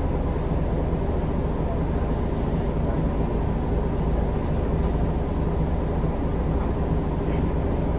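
Steady engine and road rumble inside the cabin of a MAN Lion's City G articulated diesel city bus under way.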